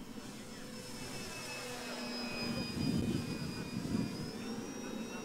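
Small RC plane's electric motor and propeller whining in flight, a thin high tone that drifts slightly in pitch and rises a little near the end. Two short low rumbles stand out around the middle.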